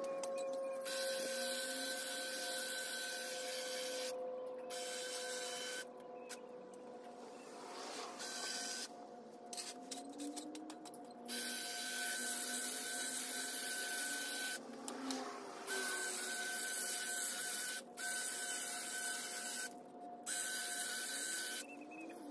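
Electric hedge trimmer running in spurts as it cuts an ivy hedge, its motor buzz switching off and on again several times with short pauses between runs.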